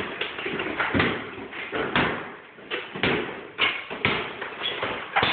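Hammers striking and breaking out a plaster and lath wall: a string of about seven irregularly spaced blows, with plaster and wooden lath cracking.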